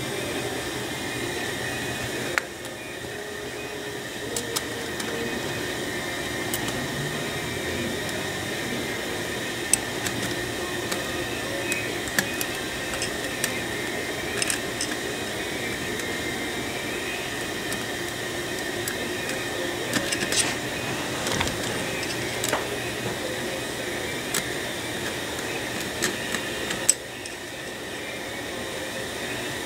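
Steady background hum and hiss of a fan or air conditioner, with scattered small sharp clicks and taps of Corvair distributor parts and screws being handled during assembly.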